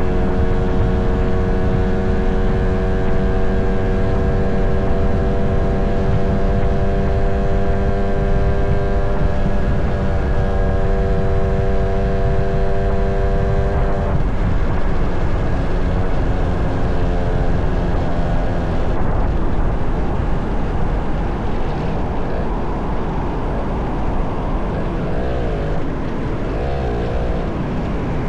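Motorcycle engine running while riding, with wind and road rumble. Its pitch holds steady for about the first half, then breaks off and shifts, wavering up and down near the end.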